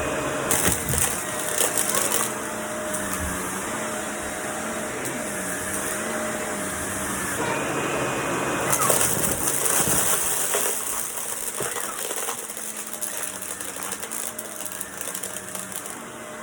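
Vacuum cleaner running steadily, with louder rushes of hiss about half a second in and again around nine seconds as it is pushed along.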